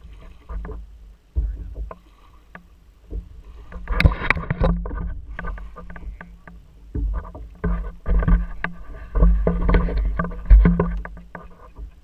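Water slapping and knocking against a kayak hull, with irregular thumps and clatter of gear on the boat, heard through a camera mounted on the kayak. The knocks come thickest about four seconds in and again through the second half.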